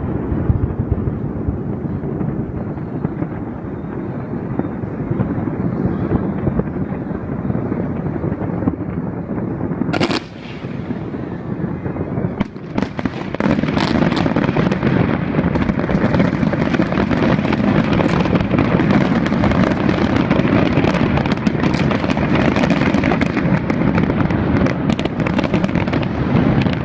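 Fireworks display going off in rapid, continuous bursts, dense crackling and banging with no gaps, briefly dipping about ten seconds in and then growing louder and denser from about halfway through.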